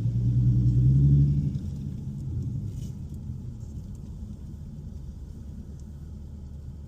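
A vehicle engine rumbling, swelling to its loudest about a second in and then dying away into a steady low drone.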